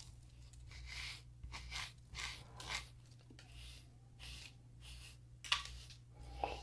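Heated ceramic straightening brush drawn through a beard, its bristles rasping through the hair in short repeated strokes about two a second.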